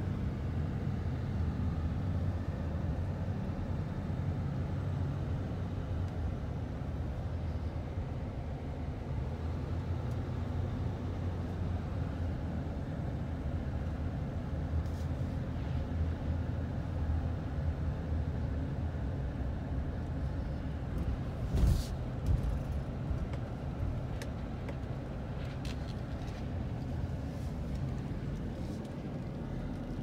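Steady low engine and road rumble of a pickup truck heard from inside the cab while driving, with a sharp knock about two-thirds of the way through.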